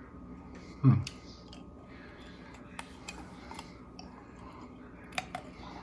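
A person chewing coated roasted almonds: a few faint, scattered crunchy clicks from the mouth, with a short hummed "mm" about a second in.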